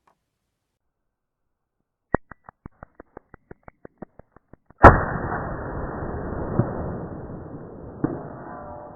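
Gunshot: a loud bang about five seconds in, with a long, muffled, rumbling tail and two smaller knocks in it. A sharp click and a fast run of fading clicks come before it.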